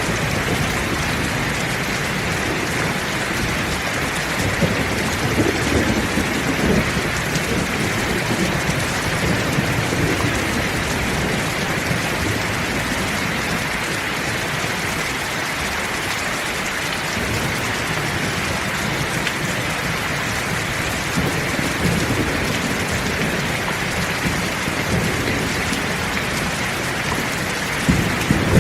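Heavy rain falling steadily in an even hiss, with low thunder rumbling now and then and a louder roll building near the end.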